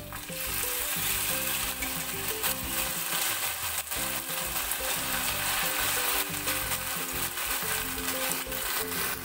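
Pressure-cooked, spice-coated beef sizzling in hot coconut oil as it is tipped into the pan, the sizzle jumping up about a third of a second in as the meat lands and then running on steadily.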